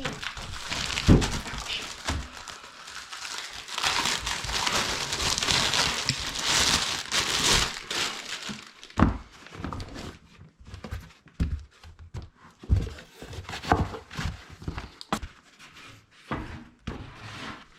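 Crinkling and rustling of packaging being handled for the first half, then scattered light knocks and clicks as desk parts are handled and set in place.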